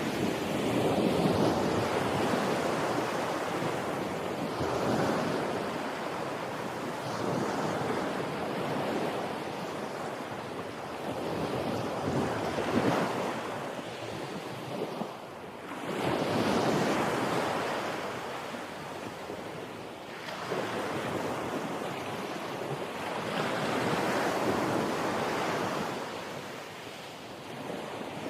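Ocean surf: waves breaking and washing up the shore in repeated swells, one surge every few seconds rising and falling away.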